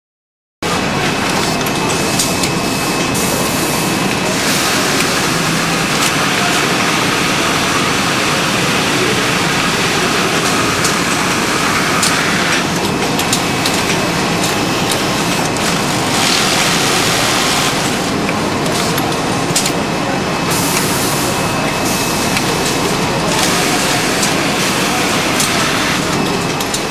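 BASS 3500 pocket welting machine running, starting abruptly about half a second in. It makes a steady mechanical whirr, with stretches of louder hissing every few seconds as its pneumatic sewing and folding head works a jacket panel.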